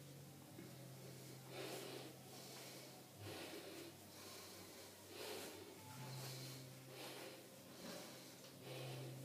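A person breathing heavily, audible puffs of breath about once a second, over a faint low steady hum.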